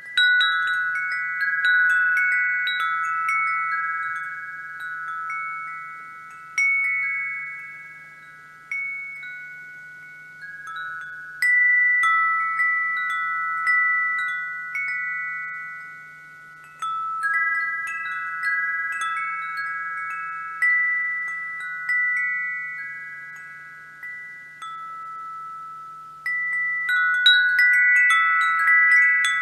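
Wind chimes ringing: several notes struck together in irregular clusters every second or two, each ringing on and fading, with busier flurries near the start and near the end.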